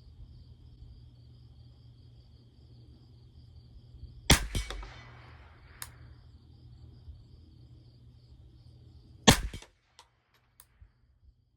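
Two shots from a Ruger 10/22 semi-automatic .22 LR rifle, about five seconds apart. Each is a sharp crack followed at once by a few quick clicks.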